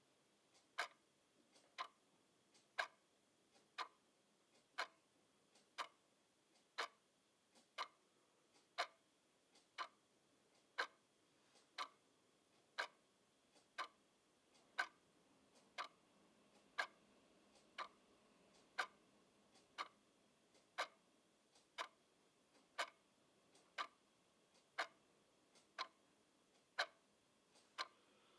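Clock ticking steadily, about one tick a second, the ticks alternating louder and softer in a tick-tock rhythm.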